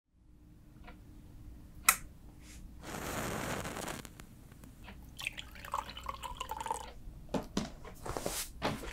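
A sharp click, then a wooden match struck and flaring with a hiss that lasts about a second. A few seconds later come soft knocks and rustles of a book being handled.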